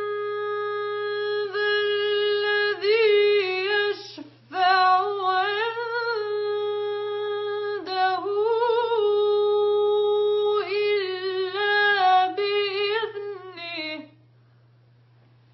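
A woman's solo voice chanting Quranic recitation in tajweed style: long held notes with ornamented, wavering turns. There is a brief breath about four seconds in, and the voice stops near the end.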